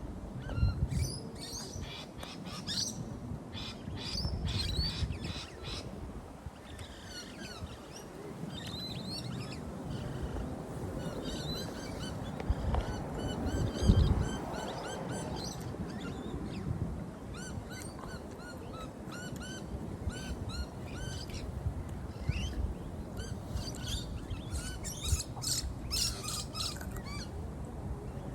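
Many small birds chirping and twittering, short repeated calls that keep on throughout, over a low rumbling background with a single thump about halfway through.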